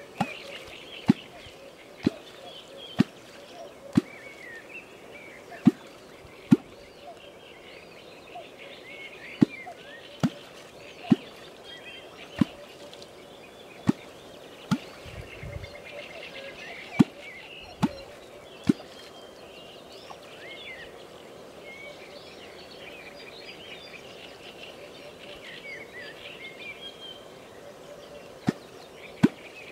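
A catfish kwok struck into the water, giving sharp pops about once a second in short runs, then a pause of about ten seconds before two more near the end. These are the calls used to draw catfish, while small birds chirp throughout.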